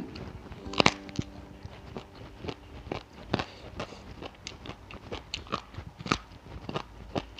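A person biting and chewing raw, crisp vegetables close to the microphone: irregular crunches and crackles, the loudest bites about a second in, midway and about six seconds in.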